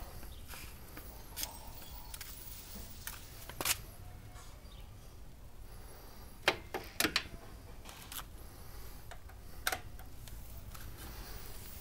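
Faint handling noise: a few scattered clicks and taps, with a quick cluster of sharper ones past the middle, over a low rumble. No engine is running.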